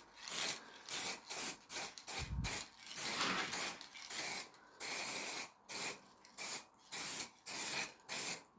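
Sandpaper rubbed back and forth by hand over a wooden surface, short hissing strokes at about two a second.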